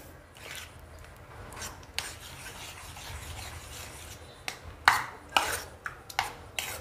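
Spoon stirring beaten egg mixture in a small stainless steel bowl: a soft steady rubbing at first, then sharper scrapes and clicks against the bowl's side over the last two seconds.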